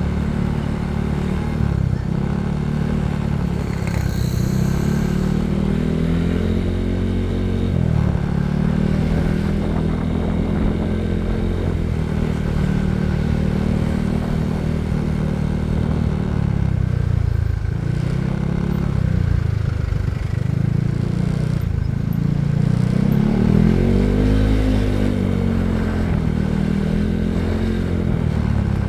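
Motorcycle engine running while being ridden, its pitch rising and falling several times as the throttle opens and closes.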